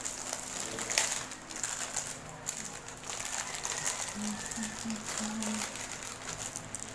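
Plastic packaging of a diamond painting canvas crinkling and rustling as it is handled, with a sharp crackle about a second in.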